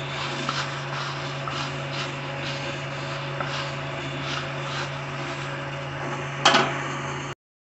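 Metal spoon stirring dry puffed rice in a bowl: light crisp rustling and scraping with small ticks, over a steady low hum. There is one louder knock about six and a half seconds in, and the sound cuts off abruptly just before the end.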